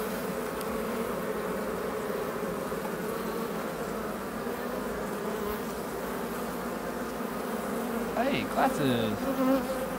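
Steady, dense buzzing of a large wild honey bee colony whose comb has been opened up for removal. A brief voice comes in near the end.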